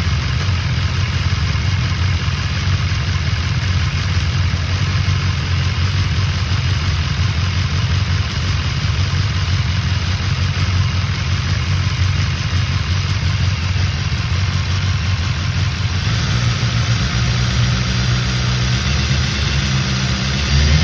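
BMW S1000XR inline-four engine idling steadily, with the cam chain rattle that the owner posts it to show. The engine note rises slightly in the last few seconds.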